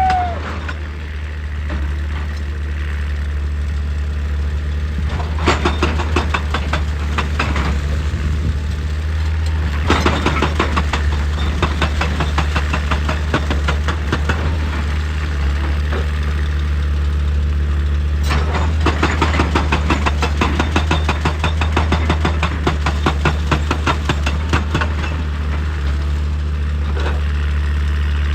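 Excavator's diesel engine running steadily, with several stretches of rapid, even knocking as the machine works on rock.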